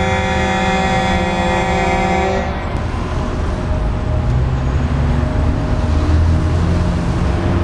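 Seismic alert alarm sounding a steady multi-tone wail that cuts off about two and a half seconds in, warning of an earthquake. After it stops there is a low street rumble.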